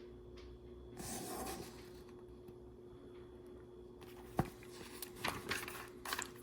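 Paper booklet pages being handled and turned: a soft swish about a second in, a sharp tap past the middle, then a few light rustles and clicks, over a faint steady hum.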